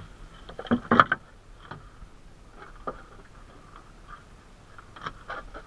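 Scattered knocks and clatters of fish and fishing net being handled against a small boat's wooden hull, the loudest cluster about a second in and a few more near the end, over a faint steady hum.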